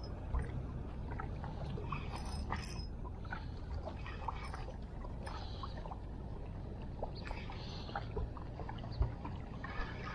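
Steady low rush of water lapping at a rocky sea shore, with faint scattered clicks from a spinning reel being cranked during a lure retrieve.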